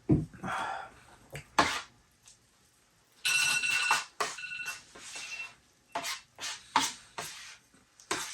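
Eating utensil clinking and scraping against a dish in a string of short strokes, with one ringing metallic clink held for most of a second about three seconds in.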